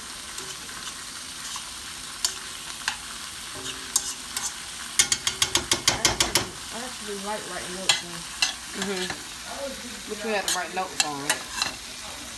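Sliced sausage, bell pepper and onion sizzling in a nonstick pan as a metal spoon stirs them, with sharp clicks and scrapes of the spoon against the pan and a quick run of clicks about five seconds in.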